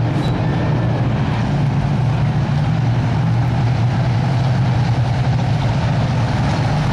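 A pack of street stock race cars' engines running together in a steady low drone as the field rolls past close by in double file.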